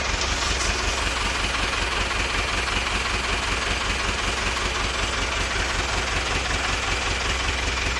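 Rebuilt engine of a Nuffield 805 tractor idling steadily, its speed unchanging: the freshly rebuilt engine running after standing for ten years.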